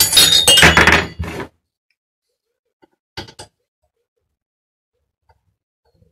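Metal-on-metal scraping and creaking of an Allen key being forced on a tight stem bolt of a BMX bike, loud for about a second and a half. A short clink follows about three seconds in.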